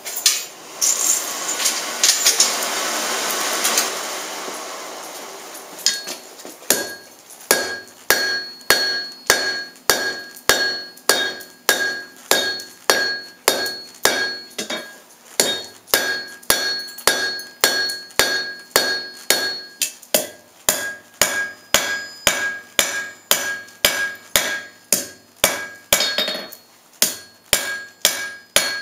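A few seconds of rushing noise, then a blacksmith's hand hammer striking hot square steel stock on an anvil at a steady rate of about two blows a second, with a couple of short pauses. Each blow sets the anvil ringing with a clear high tone.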